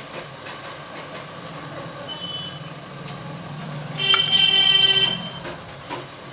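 Scissors snipping through blouse fabric and the cloth being handled, with a steady low hum behind. About four seconds in, a vehicle horn sounds one steady honk for about a second, the loudest sound, after a brief higher beep about two seconds in.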